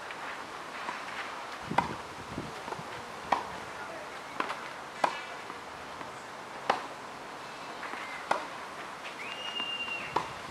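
Tennis rally on a clay court: sharp racket-on-ball pops about every one and a half to two seconds, the two players' shots alternating.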